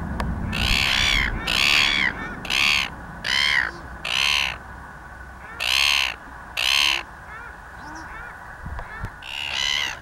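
Red-billed gull calling: a run of about seven harsh, screeching calls, each under a second long, then more calls near the end.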